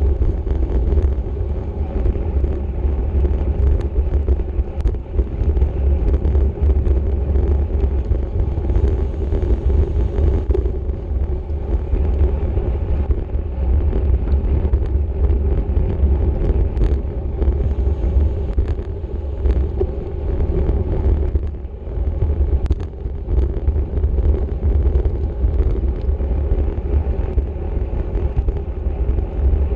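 Steady wind buffeting on a microphone carried at racing speed in a bicycle criterium, deep and rushing, with a short lull about three-quarters of the way through and a few faint clicks.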